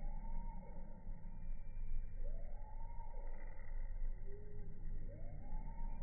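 Emergency-vehicle siren wailing in three slow rising-and-falling sweeps, about two and a half to three seconds apart, over a louder steady low rumble.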